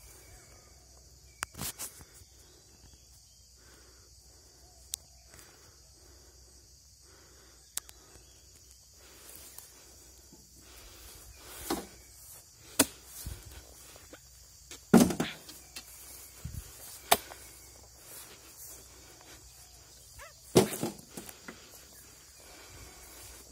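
Steady high insect chirring in the background, broken by scattered sharp knocks and thuds, the loudest about 15 seconds and 21 seconds in.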